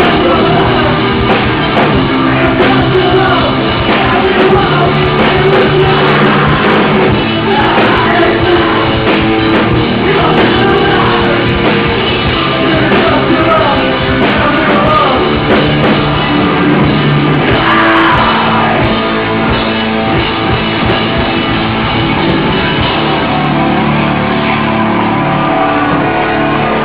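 Hardcore punk band playing live on an outdoor stage: distorted electric guitars, bass and drums with shouted vocals.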